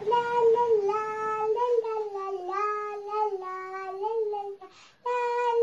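A young girl singing a wordless tune, as music for a make-believe ballet, in held notes that step up and down, breaking off briefly near the end.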